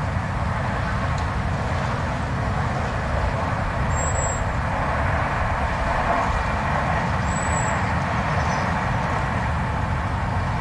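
Blizzard wind blowing steadily, a deep rumble under a rushing hiss, with two brief high whistles about four and seven seconds in.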